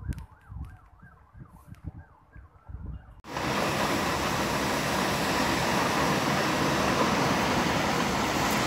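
Emergency-vehicle siren wailing and then switching to a fast yelp, over low gusts buffeting the microphone. About three seconds in, a loud steady rush of noise cuts in suddenly and covers everything.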